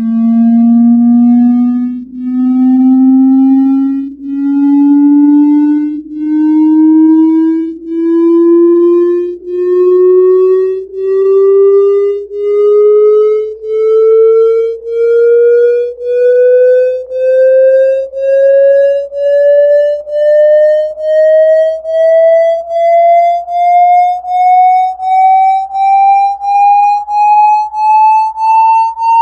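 Electronic test tone from a signal generator, gliding steadily upward in pitch from about 226 Hz to about 900 Hz. It pulses with brief dips in loudness that come faster as the pitch rises.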